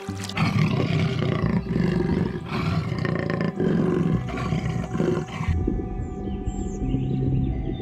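A large animal roaring in a run of deep, repeated calls. About five and a half seconds in, the sound changes suddenly to a lower rumbling with faint steady tones behind it.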